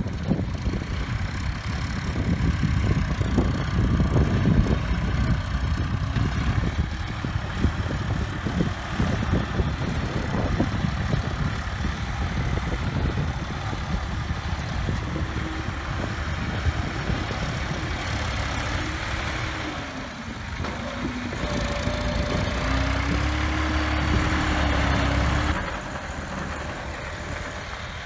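Diesel tractor engines running: a Massey Ferguson 260 pulling a loaded soil trolley and a front-loader tractor working alongside. Near the end one engine note rises and holds for about three seconds, then drops off abruptly.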